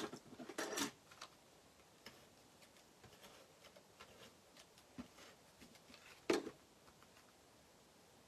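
Cardstock handled and pressed on a tabletop while a handheld tape-runner adhesive is rolled over it: faint paper rustles and small clicks, with a louder tap about six seconds in.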